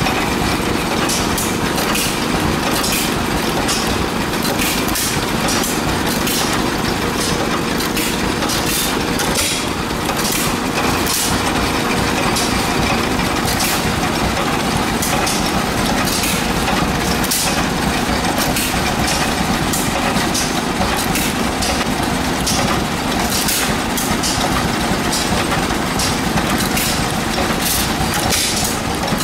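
Several old single-cylinder stationary gas engines running together, with irregular sharp exhaust pops and clicks over steady mechanical noise.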